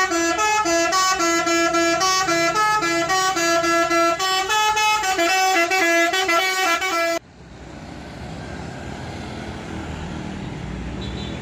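Multi-tone bus horn of the telolet kind playing a quick melody of steady stepped notes for about seven seconds, then cutting off suddenly. After it comes a quieter, steady rumble of road traffic and a bus engine.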